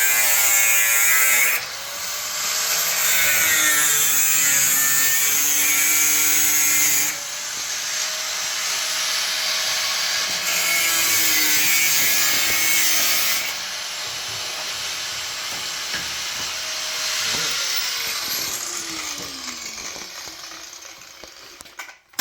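Handheld power tool cutting through rusted sheet-steel body panel, its motor pitch dipping and recovering under load over several long passes. Near the end the tool comes off the cut and winds down with a falling whine.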